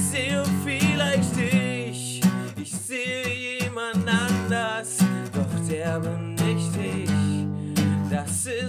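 A singer-songwriter song: strummed acoustic guitar with a man singing over it.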